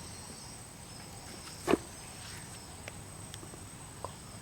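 Steady high-pitched chirring background with one sharp knock about a second and a half in, followed by a few light clicks.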